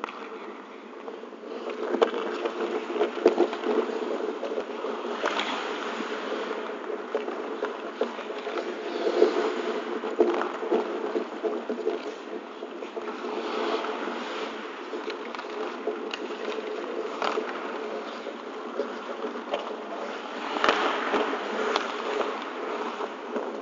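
Ice hockey play heard close to the boards: skate blades scraping and carving the ice in swells, with sharp clacks of sticks and puck, over a steady buzzing hum.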